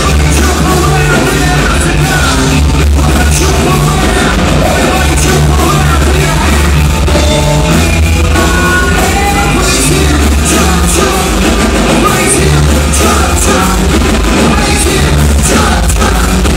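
Live rock band playing loudly, with electric guitars, bass and a drum kit, and a woman singing the lead vocal.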